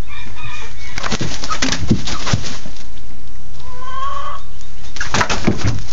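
Blue Andalusian rooster giving two short clucking calls, one at the start and one about four seconds in. Bursts of sharp scuffling and thumps come about a second in and again near the end.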